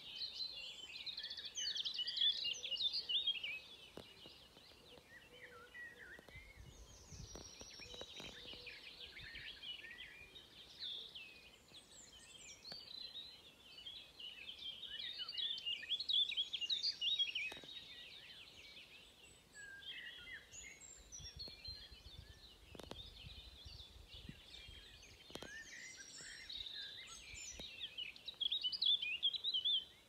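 Several songbirds singing and chirping together in overlapping high, quick phrases, in waves that grow busy and then thin out. A faint low rumble comes in twice.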